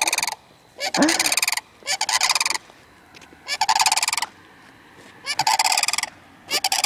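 A group of sandhill cranes calling loudly: about five rolling, rattling bugle calls, each under a second long, in quick succession.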